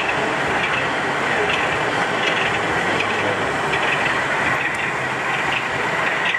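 Steady din of a busy model railway exhibition hall, with a thin, steady high whine over it.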